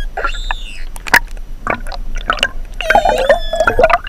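Dolphins whistling and clicking underwater: several gliding, arching whistles and a wavering one near the end, among sharp clicks, over a steady low rush of water.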